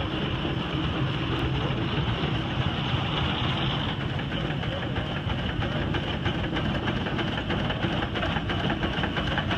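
Buffalo-Springfield steam roller's steam engine running under way, its exhaust chuffing in a steady quick rhythm as the machine rolls forward.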